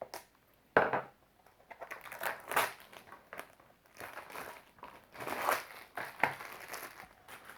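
Packaging being handled and unwrapped, crinkling and crackling irregularly, with a sharp crack about a second in.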